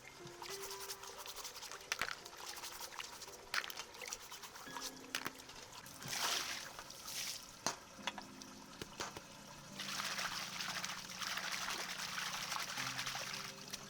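Water pouring in two spells, a short one about six seconds in and a longer one from about ten seconds until near the end, with small clicks and knocks between them.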